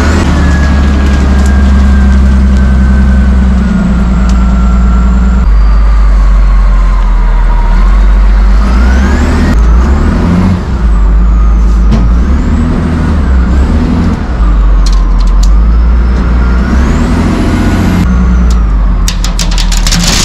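Caterpillar 972G wheel loader's diesel engine running loud and close, its revs and a high whine rising and falling as it works the bucket. Near the end, the first stones clatter into a steel dump bed.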